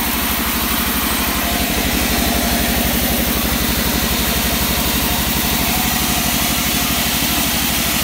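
Sawmill band saw running and resawing a hard wangkal log: a steady, fast-pulsing motor drone under the hiss of the blade cutting through the wood.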